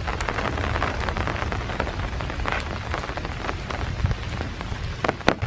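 Rain falling, a steady patter of many small drop hits, with a couple of sharper hits near the end.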